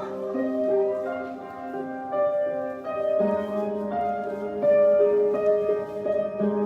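Slow music carried by a melody of held keyboard notes, with a faint beat underneath.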